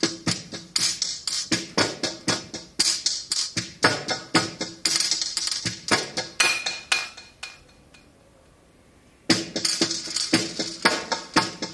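Improvised percussion music: quick, uneven strikes on small hand percussion with a faint ringing pitch under them. It breaks off for about a second and a half two-thirds of the way in, then starts again.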